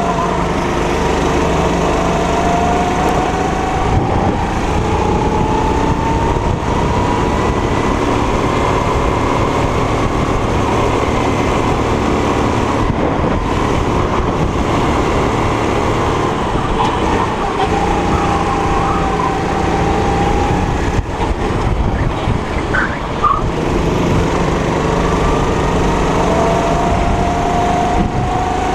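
Go-kart's 270 cc four-stroke single-cylinder engine running at racing speed, heard onboard. Its pitch climbs slowly over several seconds, falls away a little past halfway through, and climbs again near the end as the throttle is eased for corners and opened on the straights.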